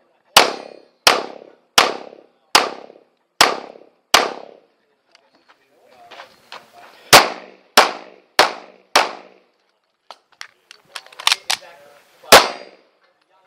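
Tanfoglio Stock 2 Xtreme 9mm pistol firing 115-grain factory ammunition. Six shots come about three-quarters of a second apart, then after a pause of about three seconds four quicker shots follow. A few fainter sharp clicks come next, and one last shot near the end.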